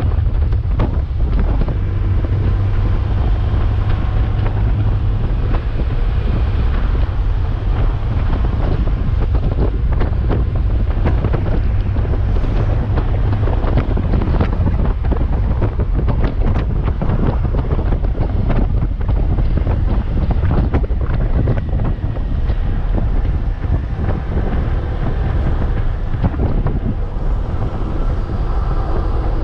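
Wind buffeting the microphone of a camera on a Honda Gold Wing touring motorcycle riding at road speed: a steady, loud rush with heavy low rumble. No engine note stands out.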